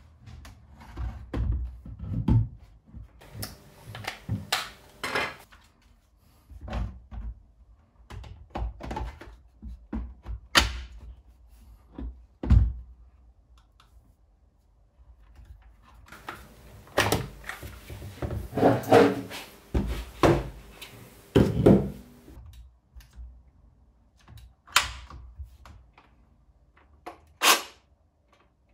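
Irregular hard plastic knocks, clicks and thunks as a DeWalt DCM575 cordless chainsaw is handled and set down on a wooden tabletop, with a denser run of louder knocks partway through; the motor is not running.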